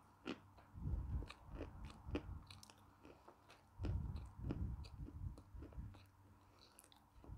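Close-miked chewing of a chunk of natural chalk: irregular crisp crunches and mouth sounds right at the microphone, with a denser run of chewing about four seconds in.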